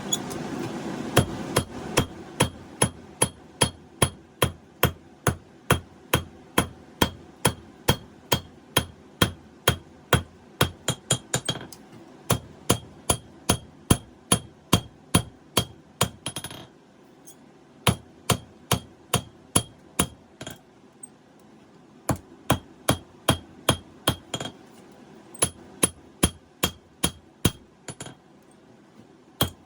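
Hammer blows on hot 5160 steel against an anvil while hand-forging a knife blade: a steady run of about two and a half strikes a second, each with a bright metallic ring, in bursts with short pauses between them. A steady rushing noise fills about the first second and a half before the hammering starts.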